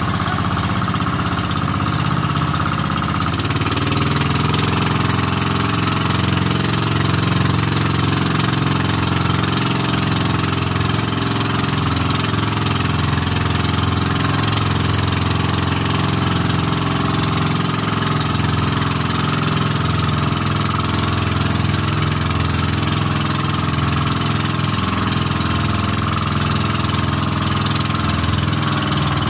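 Outrigger boat's engine running steadily under way, its level rising a little about three seconds in, with the rush of wind and water over the hull.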